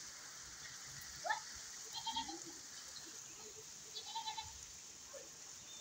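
Steady rain hissing down onto a wet yard, with three short, wavering high calls, about a second, two seconds and four seconds in.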